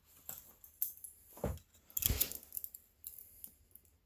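Metal butterfly knives being handled: scattered clicks and light clinks, with two duller knocks near the middle.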